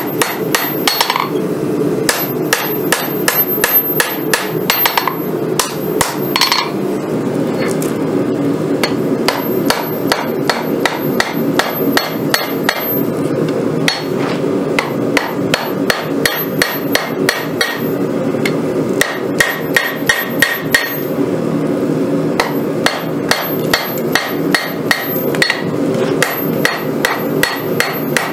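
Hand hammer blows on a red-hot San Mai Damascus steel bowie blade lying on an anvil, about three to four strikes a second with short pauses, each blow ringing off the anvil. A steady rush runs underneath the blows.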